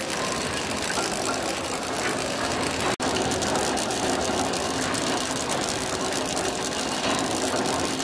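Steam engine running steadily: a continuous clatter of its moving rods, crosshead and valve gear, with a hiss of steam. The sound drops out for an instant about three seconds in.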